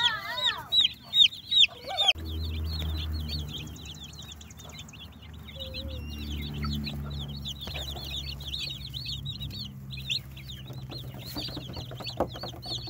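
A brood of Cornish Cross meat chicks peeping without pause, a dense chorus of short, high, overlapping chirps, with a few loud peeps close by in the first couple of seconds. A low steady rumble runs underneath after that.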